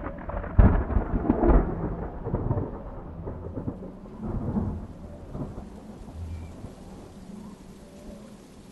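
A thunderclap about half a second in, then rolling thunder that rumbles on and fades away over several seconds, over a steady hiss of rain.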